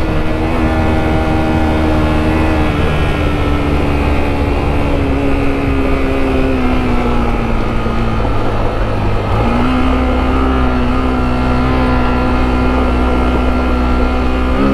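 Sinnis Terrain T125's single-cylinder 125cc engine running under load off-road, its note sagging slowly for several seconds and then picking up again about nine and a half seconds in, with wind rushing past.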